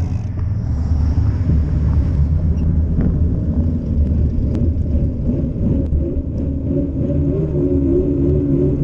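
Steady low rumble of wind buffeting a handlebar-mounted camera's microphone, with tyre noise on asphalt, as a bicycle rolls along a street.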